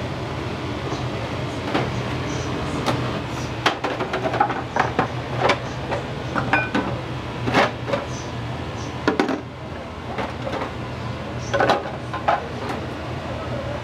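Restaurant kitchen at work: a steady low hum, as of a gas burner or exhaust fan, under scattered clanks and knocks of metal cookware and utensils.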